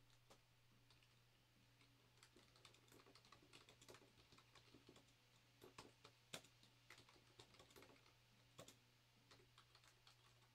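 Faint typing on a computer keyboard: irregular key clicks, a few louder than the rest, over a steady low electrical hum.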